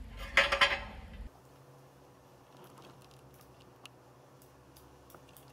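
Small metal hardware and aluminium frame parts clinking in a short loud burst near the start. After about a second it gives way to a faint steady low hum with a few light ticks.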